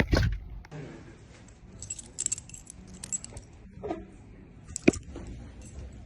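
A bunch of metal keys jangling in light, scattered clinks, with a knock at the start and another sharp knock about five seconds in.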